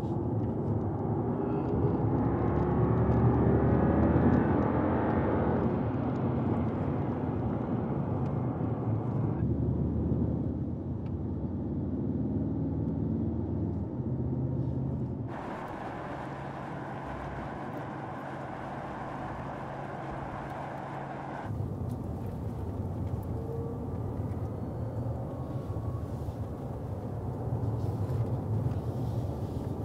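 Mercedes-AMG GT 63 S E Performance's twin-turbo V8 running under way with road noise, rising in pitch as the car accelerates over the first few seconds, then running steadier. The sound changes abruptly three times.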